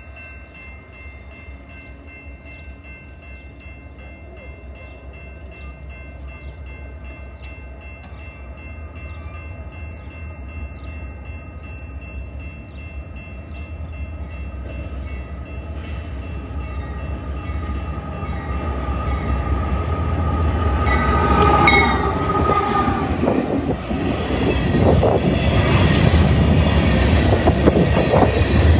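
An approaching train with a low diesel rumble that grows steadily louder. Over it a grade-crossing bell rings in rapid, even strokes. About three quarters of the way in the locomotive sounds its horn, and the train then passes close by with loud wheel and rail clatter.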